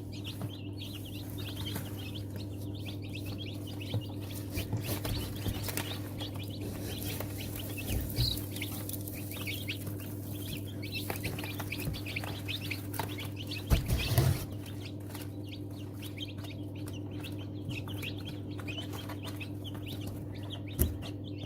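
Many newly hatched chicks peeping continuously over a steady low hum. Brief handling knocks come about eight seconds in and again around fourteen seconds.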